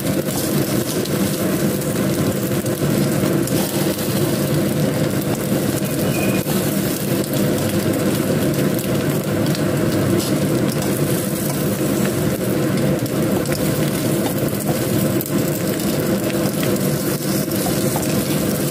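Egg-coated slices of sticky rice cake sizzling steadily in oil in a frying pan, with a steady low mechanical hum underneath.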